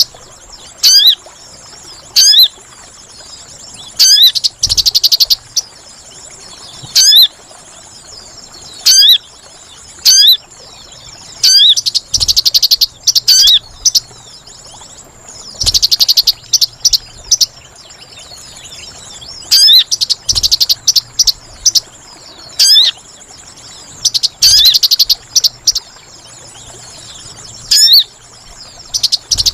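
Sogon bird lure call: sharp, high chirps repeated every second or two, broken by several longer rapid twittering bursts, over a faint steady high buzz.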